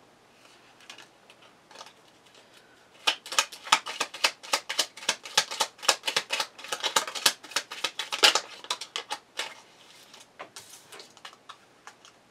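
A deck of tarot cards shuffled by hand: a rapid run of papery card flicks and clicks starting about three seconds in, thinning out into a few separate snaps near the end as cards are laid out on the table.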